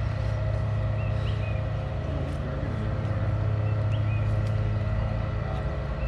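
A steady low mechanical hum that holds an even pitch throughout, with a few faint short high chirps over it.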